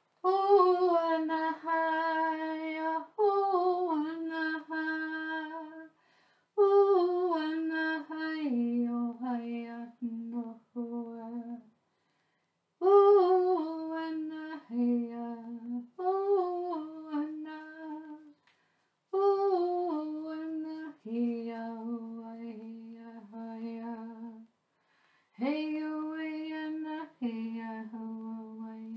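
A woman chanting in long held notes with a slight waver, in five phrases of about five seconds each; each phrase starts higher and steps down to a lower held note, with brief pauses between phrases.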